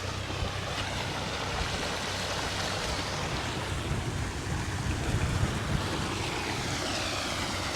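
Surface water running through a freshly dug drainage ditch as the flooded field drains, over the steady low hum of an excavator engine running.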